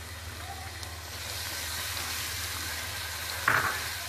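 Garlic paste sizzling in hot ghee with browned onions in a wok, the frying hiss growing louder about a second in. A brief louder knock near the end.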